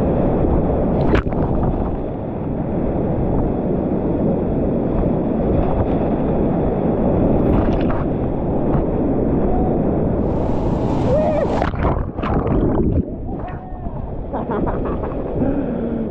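Whitewater rapids rushing and churning around a kayak running them, a dense steady roar of moving water close to the microphone. Sharper splashes break through around ten to thirteen seconds in, and the roar eases slightly after that.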